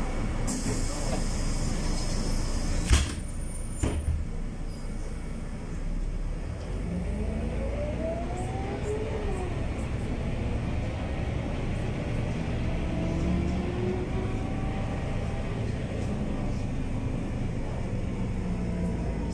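Mercedes-Benz O345 city bus with a ZF 4HP-500 automatic gearbox: a hiss of compressed air lasting a couple of seconds ends in a sharp thump, with a second knock a second later. Then the bus pulls away, its engine note rising, dropping at a gear change and rising again.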